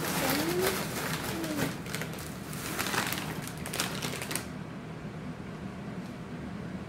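Takis chip bag crinkling and rustling as a hand rummages inside it, for about four seconds before it stops. Two short hummed vocal sounds come near the start, over a steady low hum.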